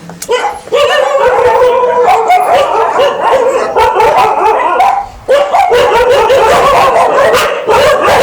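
Many shelter dogs barking and howling at once, a continuous overlapping din of barks, yips and howls, with a brief lull about five seconds in.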